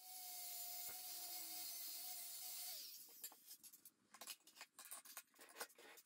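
Cordless angle grinder with a flap disc grinding a weld on a steel piece, a steady motor whine with a hiss. A little under three seconds in it is switched off and winds down, followed by a scatter of light clicks and taps.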